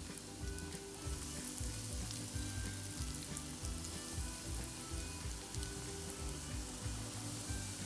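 Fish cutlets coated in egg and rusk crumbs frying in hot oil: a steady sizzle with scattered crackles.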